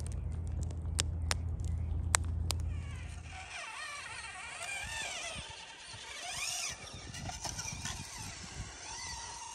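Electric motor of a radio-controlled crawler truck whining, its pitch rising and falling as the throttle is worked. Before that, for about the first three seconds, a low steady hum with a few sharp clicks.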